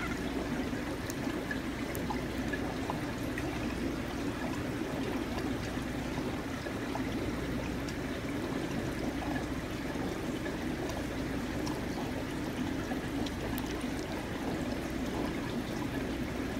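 Water trickling and running steadily, with faint small drips and splashes.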